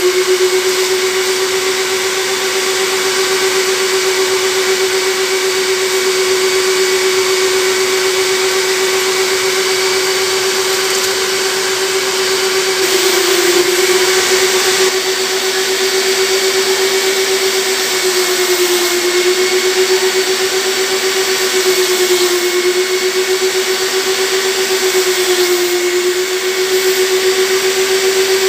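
Vacuum motor of a carpet and upholstery extraction machine running with a steady whine, as its hand tool sucks water out of sofa fabric. The pitch dips briefly a few times.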